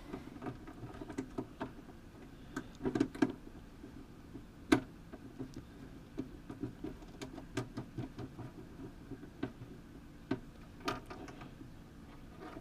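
Irregular small clicks and taps of the saddlebag lock's hardware (screw, lock washer and hook latch) being handled and fitted. There is a cluster of knocks about three seconds in and one sharp click just before five seconds.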